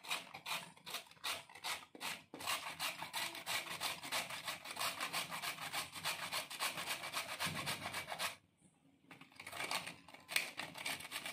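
Raw cauliflower florets rubbed back and forth over a handheld steel grater: quick, even rasping strokes, about four to five a second. The strokes break off briefly about two-thirds of the way through, then go on.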